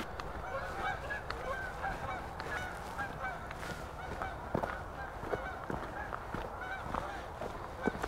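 A flock of geese honking, many short overlapping calls going on throughout, fairly faint. A few soft footsteps are heard on the path.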